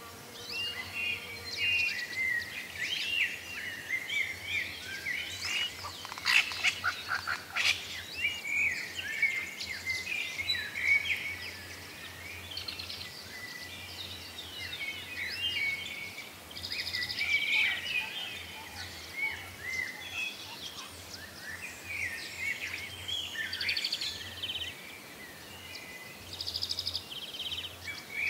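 Several birds chirping and singing at once, a busy chorus of short high calls that goes on the whole time, with a louder run of rapid, sharp notes about six to eight seconds in.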